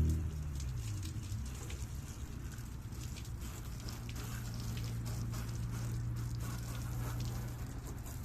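Fresh water from a hose spattering and pattering on a boat's hull and trailer, rinsing off salt and mud, with a low steady hum underneath.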